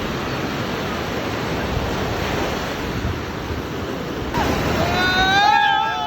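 A steady, loud rushing noise, with a long, loud pitched call that rises and wavers starting about four seconds in.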